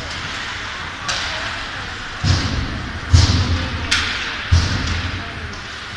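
Ice hockey pucks and sticks knocking against the rink boards and glass: about five sharp knocks that echo in the hall. The three heaviest land as deep thuds, the loudest a little past the middle.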